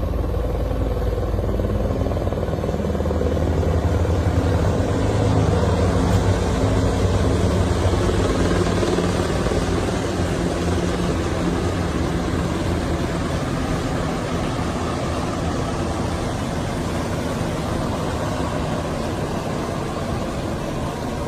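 A steady, loud engine drone with a low hum, swelling a little in the first few seconds and then easing gently.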